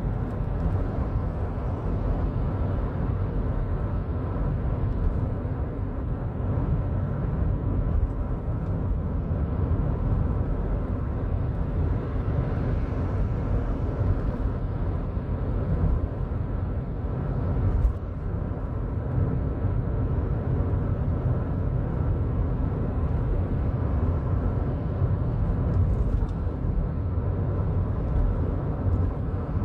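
Steady low rumble of a car driving along a highway, with road and engine noise heard from inside the cabin.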